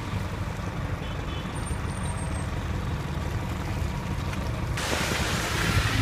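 Road traffic on a snowy street: a steady low rumble of vehicles, with a louder hiss coming in abruptly near the end.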